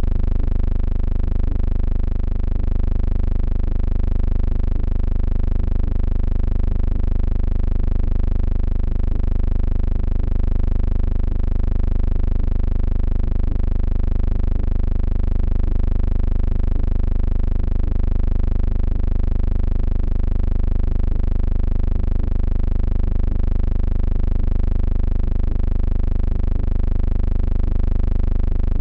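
A steady, unchanging hum with many evenly spaced overtones, loudest in the deep bass.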